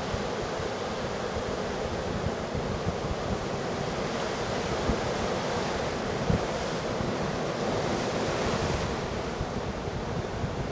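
Heavy storm surf breaking and washing ashore in a steady rush of noise, with wind gusting on the microphone.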